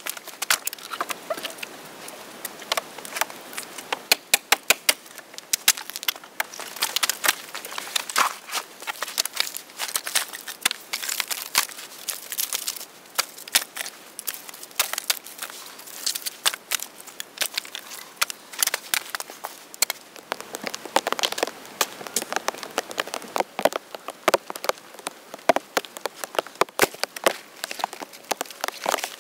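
Dry deadwood and twigs crackling, snapping and knocking in quick, irregular clicks as branches are handled and stepped on, with a few louder cracks about four seconds in and near the end.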